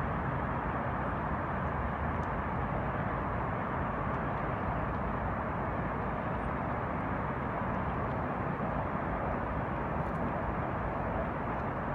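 Steady, even drone of highway traffic, with no single vehicle standing out.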